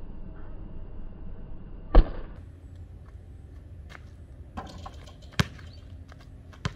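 A basketball thudding on an outdoor concrete court: one loud bounce about two seconds in, then a few lighter knocks in the second half.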